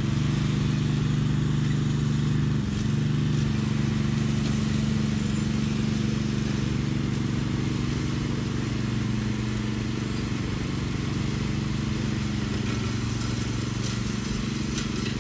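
Riding lawn mower's engine running steadily under load while it mows grass, with a brief shift in pitch a little over two seconds in. It grows slightly fainter near the end as the mower moves away.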